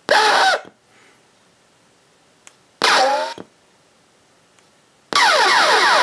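IR-XX03 laser tag sound-effect board playing three short random sound bites through computer speakers, each set off when the infrared receiver picks up a remote's signal. Each sound bite comes from its ricochet, zombie, video-game and scream set. The first two are brief, about half a second each. The third starts near the end and is longer, full of falling whistling tones.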